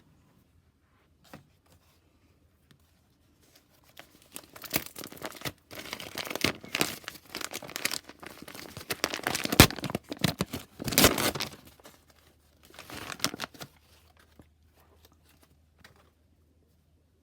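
Packaging being crinkled and torn open by hand in irregular bursts, loudest about two-thirds of the way through, with a few light clicks in the quiet stretches before and after.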